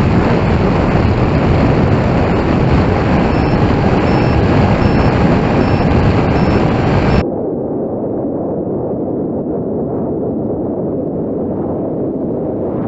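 Steady rush of wind and motor noise from a Heewing Ranger T1 RC plane in flight, picked up by its onboard camera. About seven seconds in the sound suddenly drops in level and turns duller as the footage switches to a second camera.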